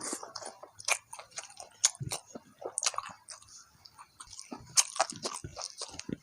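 Close-miked chewing of a mouthful of rice with petai beans in sambal: irregular crisp crunches and wet mouth clicks and smacks.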